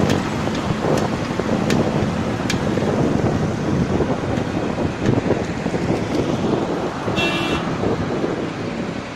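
Wind rushing over the microphone with road and traffic noise while riding a motorcycle, and a short vehicle horn beep about seven seconds in.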